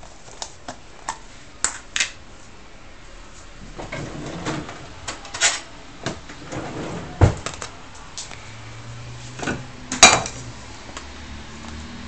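Irregular clicks, knocks and clatters of kitchen handling: the plastic lid coming off a margarine tub, with a metal spoon and a pot knocking about. The sharpest knocks come about seven and ten seconds in, and a low steady hum starts about nine seconds in.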